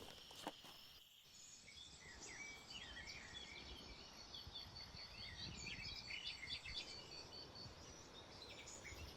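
Faint forest birdsong: many short scattered chirps, with a high, rapid trill running for about four seconds in the middle.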